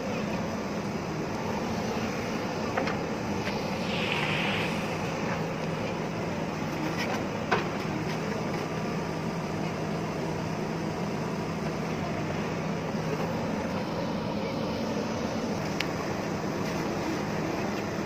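JCB backhoe loader's diesel engine running steadily under load while the backhoe arm digs soil. A sharp knock comes about seven and a half seconds in, with a couple of fainter ones and a brief hiss elsewhere.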